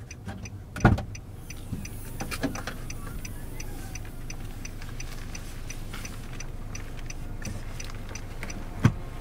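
Rapid, even ticking, about three ticks a second, over a low steady hum, with a heavy thump about a second in and another near the end.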